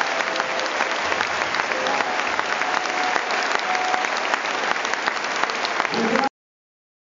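Audience applauding, a dense steady clatter of many hands clapping that cuts off suddenly about six seconds in.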